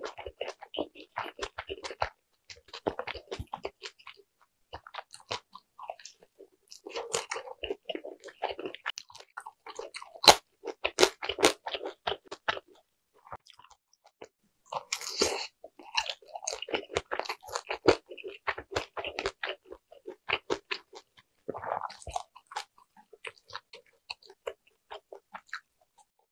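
Close-miked chewing and biting of large meat dumplings, some air-fried until crisp: quick runs of clicky, crunchy mouth sounds in bursts with short pauses, the loudest crunching about halfway through as a browned dumpling is bitten.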